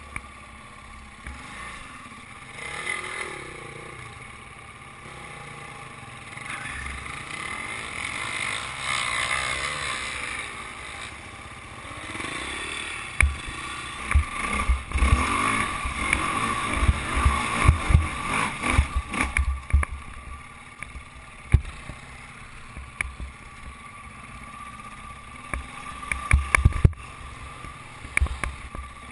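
Enduro dirt bike engine running while ridden off-road, heard from on the bike, its pitch rising and falling with the throttle. A run of sharp thumps and knocks from rough ground sets in about halfway through and comes back briefly near the end.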